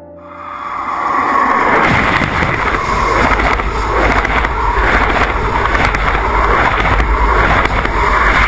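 A loud, steady rushing and rumbling noise that swells in over the first second.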